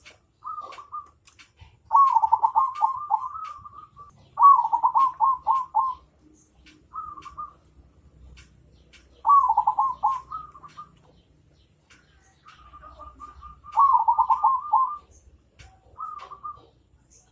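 A bird calling over and over, in phrases of quick rippling notes that each last a second or two, with shorter single notes in between. Faint clicks sound in the gaps.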